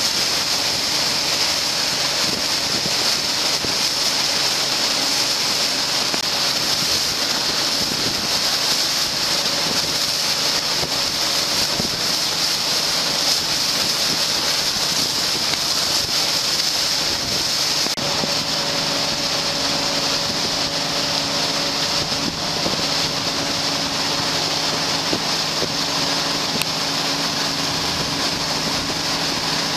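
Boat engines running at speed under a steady rush of water and spray, with wind on the microphone. The engine hum grows clearer a little over halfway through.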